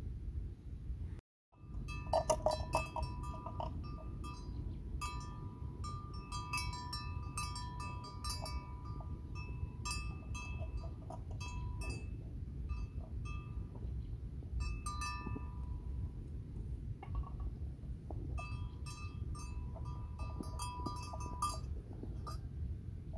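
A livestock bell on a grazing water buffalo clinks in irregular clusters, the same few ringing notes struck over and over, with a steady low rumble underneath. There is a brief break about a second in.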